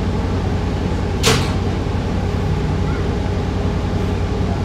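Hybrid diesel-electric New Flyer XDE40 city bus running, heard from inside the cabin as a steady low drone. About a second in there is one brief, sharp burst of noise.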